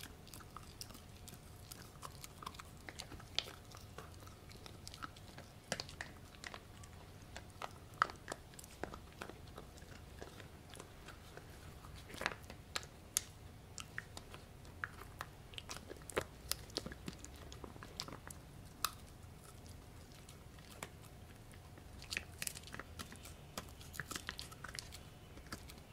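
A Pomsky puppy chewing a crunchy piece of pork: irregular sharp crunches and clicks of teeth, coming in bunches with short pauses between.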